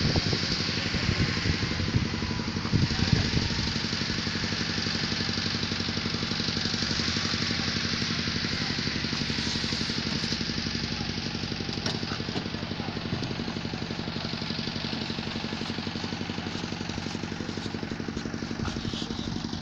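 An engine running steadily at a constant pitch, with a few louder knocks in the first few seconds.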